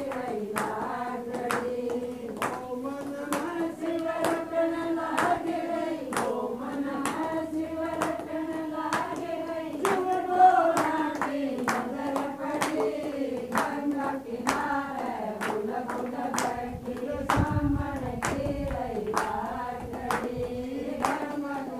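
A group of women singing a Hindi devotional Shiv bhajan in unison, keeping time with steady hand claps.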